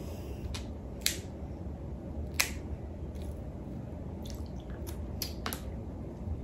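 Crab leg shells being cracked and picked apart by hand: a series of short, sharp cracks and clicks at irregular intervals, the loudest about two and a half seconds in.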